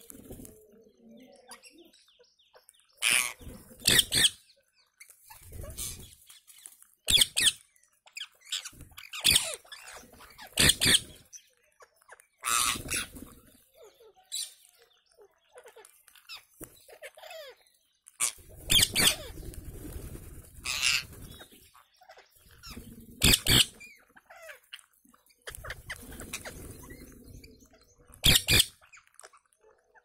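A feeding flock of rose-ringed parakeets giving about a dozen loud, shrill screeches at irregular intervals, with fainter calls between.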